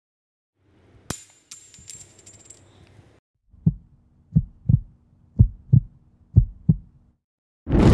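Logo-intro sound effects: a bright metallic clink with a high shimmer about a second in, then a heartbeat effect of paired low thumps over a low hum. A loud crash starts at the very end.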